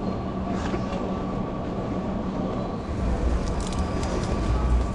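Busy railway-station shop ambience: a steady hum with a deep rumble that swells in about three seconds in. Near the end come a few light clicks of a plastic-wrapped bento box being handled.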